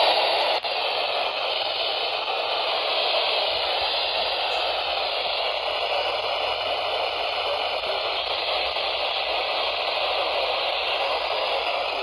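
Steady radio static: an even hiss from a radio receiver, with no clear voice coming through.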